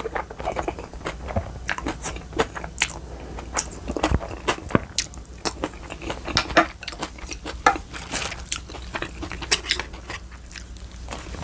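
Close-miked eating: chewing and biting with wet smacking mouth sounds, many short irregular clicks.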